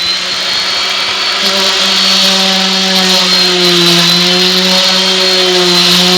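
Electric orbital sander with 60-grit paper running steadily at full speed, a steady motor whine with a high tone on top. Its pitch dips slightly about four seconds in.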